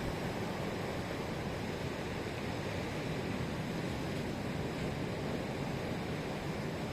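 Sea surf rushing steadily, a continuous wash of waves with no single breaker standing out.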